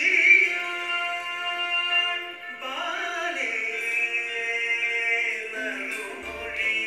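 Recorded Indian classical-style song playing: a voice holds long notes and bends between them over instrumental accompaniment.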